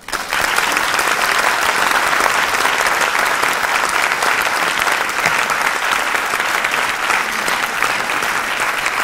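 Audience applauding, starting all at once and holding steady.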